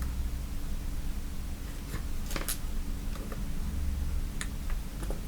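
A few light, sharp clicks and taps from handling small tools on a circuit board, over a steady low hum.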